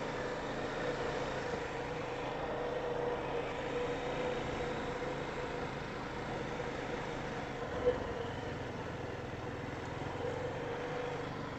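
ATV engine running steadily, with a brief sharp click about eight seconds in.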